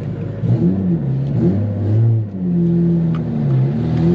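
Single-turbo Nissan 350Z's VQ35HR V6 heard from inside the car, its engine note rising and falling several times, then holding steady before climbing again near the end.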